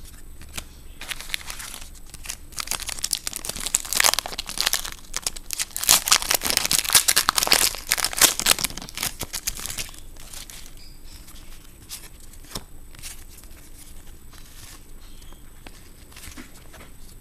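A trading card pack's wrapper being torn open and crinkled, dense and crackly through the first half, then lighter rustling and clicks as the cards are handled.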